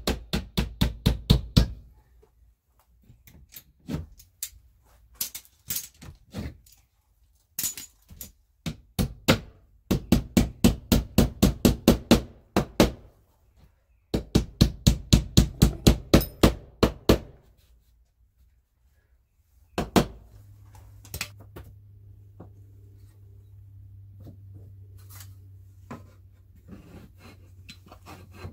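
Claw hammer driving nails into fiber cement lap siding: quick runs of about four blows a second, in several bursts with short pauses, ending after about seventeen seconds. A single blow follows a little later, then a faint low hum with a few light knocks.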